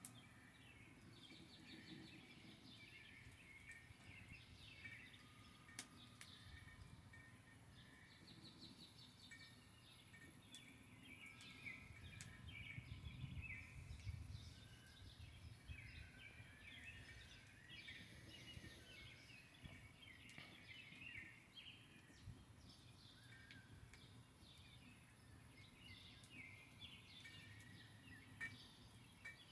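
Faint chorus of several small birds chirping and trilling, with quick pulsed trills among the chirps, over a low rumble.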